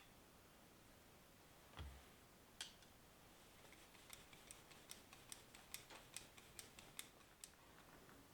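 Very faint workshop sounds: a soft thump, then a run of small sharp clicks, about three a second.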